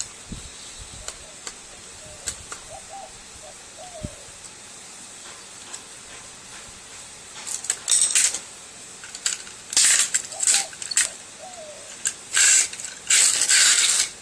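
Metal clinking, rattling and scraping as aluminum heat sinks are worked loose from a TV circuit board with hand tools. A few light clicks come first, then bursts of clatter in the second half.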